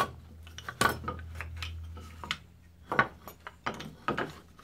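A string of sharp knocks and clatters as wooden molding planes are picked up and set down on a wooden workbench.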